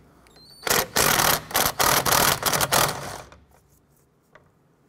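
Cordless power ratchet with a 15 mm socket spinning a master cylinder mounting nut loose from the brake booster, run in several short trigger pulls lasting about two and a half seconds and stopping a little after three seconds in.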